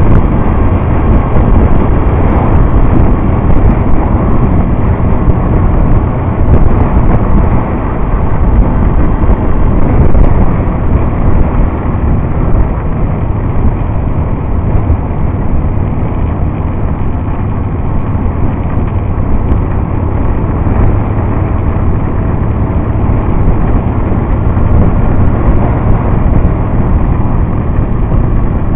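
Motorcycle riding at highway speed, heard from the bike itself: a steady engine drone under loud wind rushing over the microphone.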